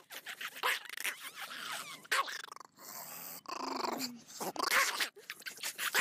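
Small long-haired dog growling and grumbling in uneven spurts, with a short higher, more tuneful stretch about four seconds in.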